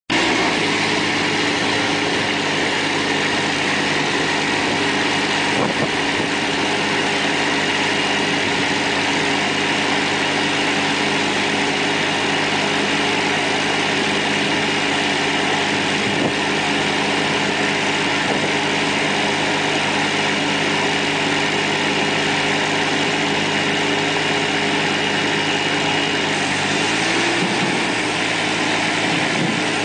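Engine of an AUSA M150MC multiservice truck running steadily at a constant speed, with a steady high whine over it. Near the end the engine speed briefly rises and then drops back.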